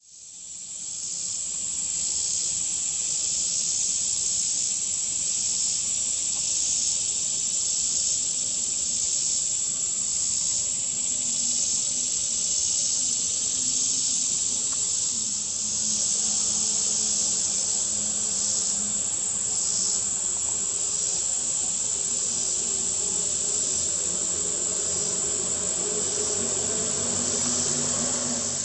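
Steady, high-pitched chorus of insects in summer grassland, fading in over the first second or two.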